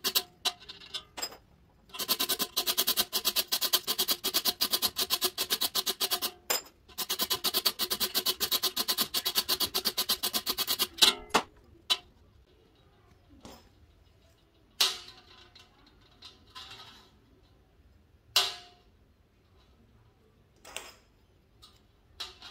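Hand wire brush scrubbed rapidly back and forth on a galvanized steel bar, cleaning the surface before aluminium-rod joining. The brushing stops about 11 seconds in, followed by a few separate sharp knocks and clinks as aluminium tubes are set upright on the steel bar.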